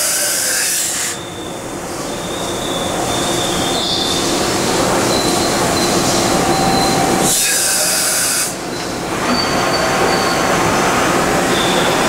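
Okuma MC-50H CNC horizontal machining center running a dry-run cycle: steady mechanical running with thin high whines coming and going. It is broken twice by a loud hiss of about a second, at the very start and about seven seconds in.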